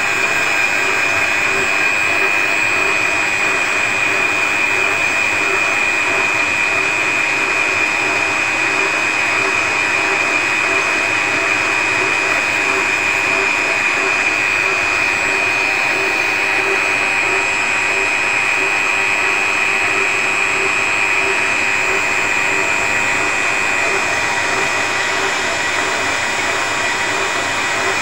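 Small electric grinder with a mounted grinding stone running at a steady high whine, lightly grinding the worn journals of a WSK 125 gearbox main shaft as it turns in a lathe under automatic feed. The lathe runs under it. This is a light pass that throws only faint sparks while the barrel-worn shaft is trued up.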